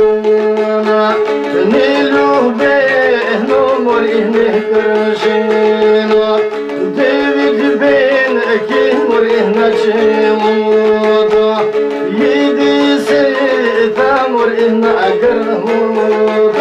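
Balkan folk song playing: an ornamented, wavering melody over a steady held drone, with drum strokes throughout.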